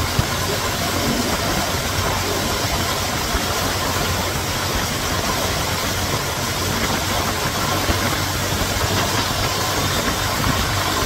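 Steady rushing hiss with a faint low hum underneath.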